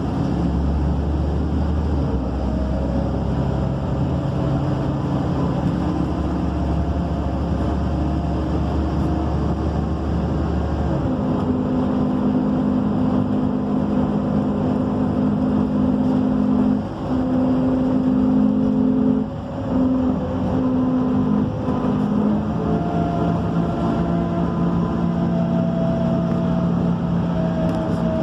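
MAN Lion's City bus engine and drivetrain running, heard from inside the cabin. A low drone stops about a third of the way in and is replaced by higher steady tones, with two brief dips in level a little past the middle.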